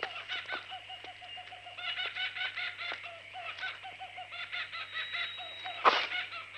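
Birds calling continuously in a chattering run of quick repeated notes, with one sudden loud sound near the end.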